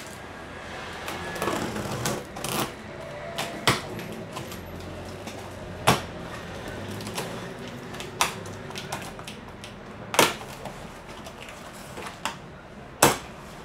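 Cardboard box being cut open and its flaps worked back by hand: rustling and scraping with irregular sharp snaps and knocks, about one loud one every two seconds.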